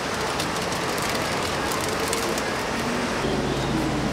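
Steady street background noise. About three seconds in, a low, steady engine hum sets in.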